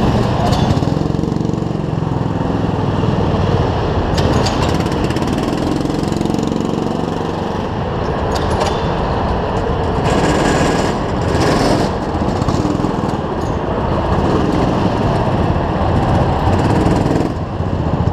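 Several small go-kart engines idling together on the grid, a loud, steady, rattling drone whose pitch drifts up and down a little as engines are blipped.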